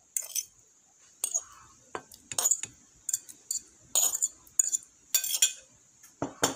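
Metal utensils clinking and knocking against a ceramic plate and bowl, in irregular sharp clinks, as shelled mussels are pushed off the plate into wet batter.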